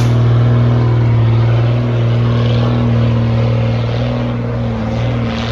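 Unimog truck engine pulling steadily under load as the truck climbs a steep dirt hill. The revs hold even, with a brief dip near the end.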